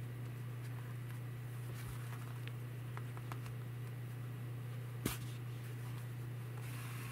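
Quiet handling of a crocheted toy and yarn while sewing: faint rustles and small ticks over a steady low hum, with one sharp click about five seconds in.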